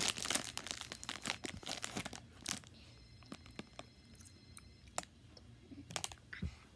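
Candy wrapper crinkling and tearing close to the microphone, dense for the first two and a half seconds, then thinning to a few scattered crackles.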